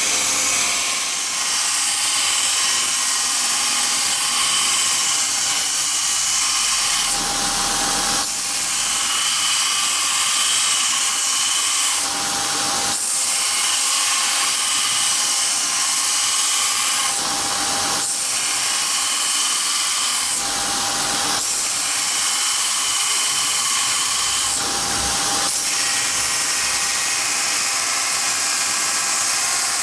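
Homemade belt grinder running steadily with a high whine and a sanding hiss, its sound shifting briefly every four or five seconds.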